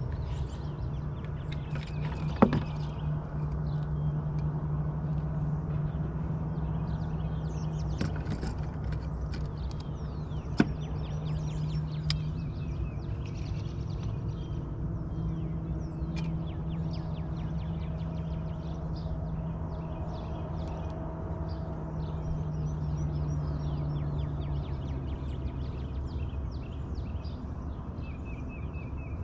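A boat motor runs with a steady low hum that shifts slightly near the end, while birds chirp throughout. A couple of sharp clicks stand out, one a few seconds in and one about ten seconds in.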